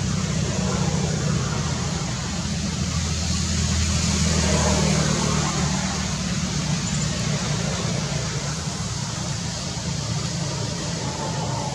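Steady low rumble of motor traffic with a hiss over it, swelling about four seconds in and easing off after.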